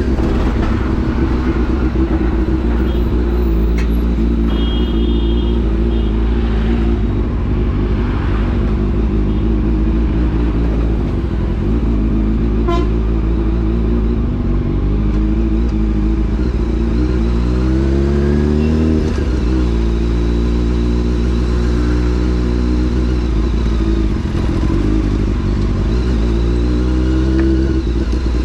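Honda CBR600F4's inline-four engine running under way. Its pitch climbs for a couple of seconds past the middle, then drops sharply, and climbs again near the end. A brief high horn beep sounds about five seconds in.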